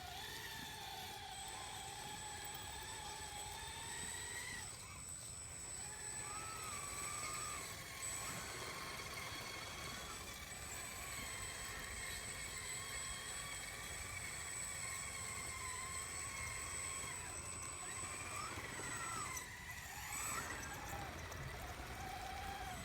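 Small electric drive motors and hydraulic pumps of radio-controlled model construction machines whining, their pitch rising and falling as the machines move and work, over a steady thin high whine.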